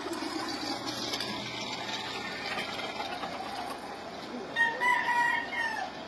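A gamefowl rooster crows once near the end, one held call of about a second and a half that drops in pitch as it ends, over a steady background noise.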